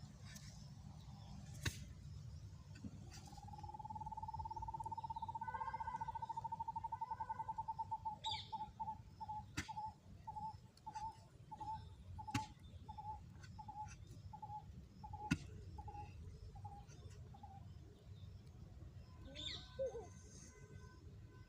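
An animal call: one long, clear note that rises slightly and holds, then breaks into a series of short repeated notes, about two a second, that fade out. Sharp clicks are scattered throughout over a steady low rumble.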